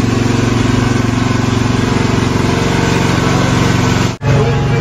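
A small engine running steadily at an even pitch. The sound drops out briefly about four seconds in.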